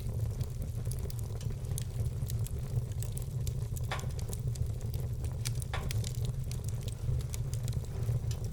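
Wood fire in a fireplace crackling: many small, sharp pops over a steady low rumble, with a louder pop about four seconds in and another just before six seconds.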